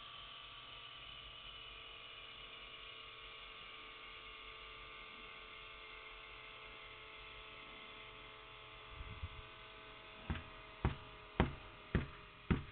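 Small DC motor air pump running steadily, a thin motor whine and hum, as it inflates an air pillow through a tube. About ten seconds in, a hand pats the filled pillow five times, dull thumps about half a second apart.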